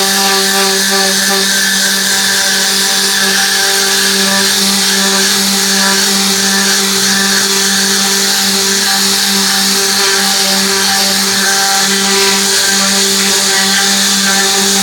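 Electric motor of car-interior cleaning equipment running at a steady pitch under a loud rush of air.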